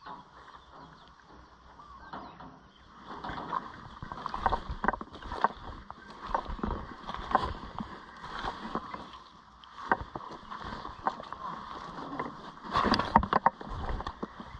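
Footsteps squelching and sucking through thick, wet mud, roughly one or two steps a second, with a louder cluster of steps near the end.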